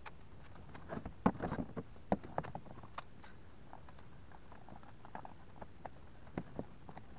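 Clicks and knocks of parts being handled and fitted as a brass tap and PVC container are worked into a small wooden barrel: a cluster of knocks about a second in, then scattered light clicks.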